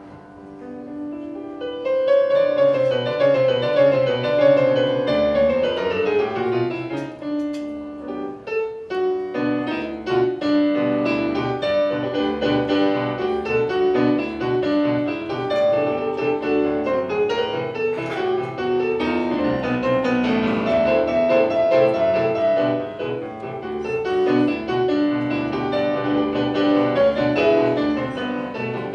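Solo piano on a digital stage piano. It starts softly, comes in fully about two seconds in, and plays a descending run around six seconds in. After that it carries on with continuous chords and melody.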